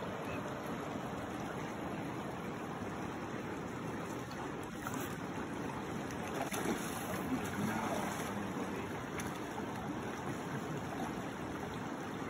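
Shallow river running over rocks and gravel in a riffle: a steady rush of water.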